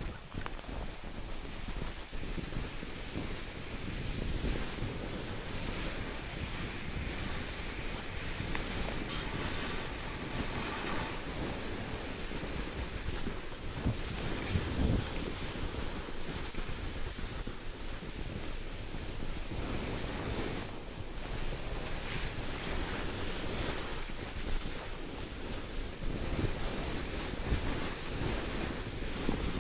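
Skis sliding and hissing over snow, with wind buffeting the microphone in a steady, uneven rush of noise.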